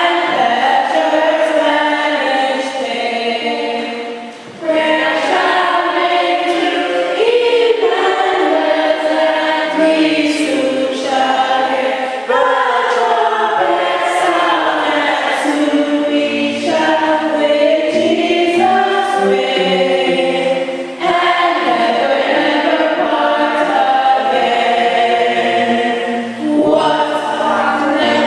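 A choir singing in phrases, with brief breaks between them.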